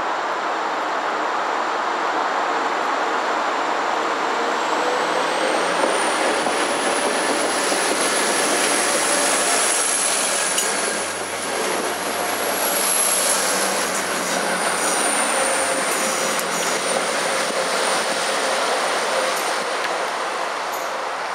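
A train running on the line with a steady rush of noise. A high whine rises in pitch about five seconds in and then holds.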